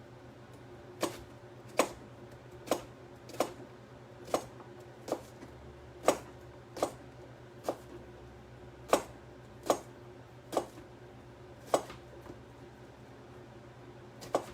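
Kitchen knife cutting small cucumbers on a cutting board: a sharp knock of the blade against the board about once a second, some fourteen cuts in all.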